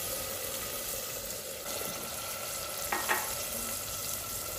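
Beef keema sizzling steadily in hot oil in a clay handi as lukewarm water is added, with one short knock about three seconds in.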